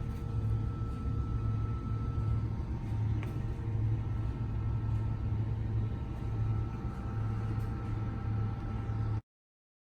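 Duplo CC-228 business card slitter running with a steady low hum from its motor and rollers, cutting off suddenly near the end.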